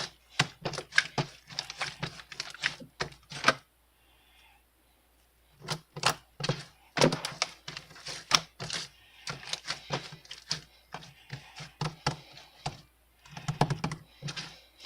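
Keys being typed in quick runs of clicks, stopping for about a second and a half some four seconds in, then going on.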